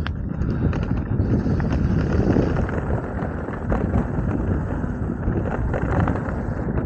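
Mountain bike riding down a dirt bike-park trail: tyres rolling over rough ground with frequent rattles and knocks from the bike, under steady wind rumble on the microphone.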